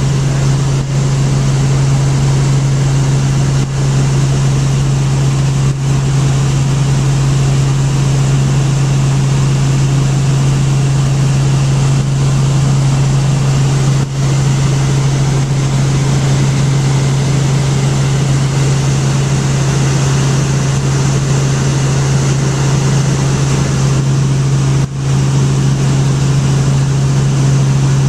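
Helicopter in flight, heard from inside the cabin: a loud, steady drone of engine and rotor, a constant low hum under a broad rushing hiss.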